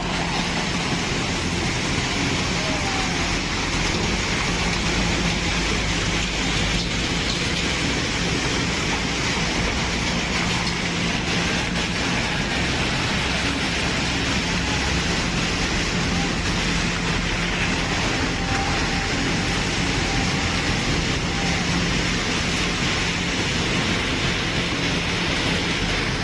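Flash flood of muddy water carrying rocks and debris, a steady loud rushing noise.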